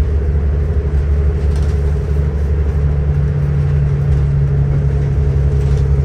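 Steady drone of a city transit bus under way, heard from inside the passenger cabin: a low engine hum with road noise.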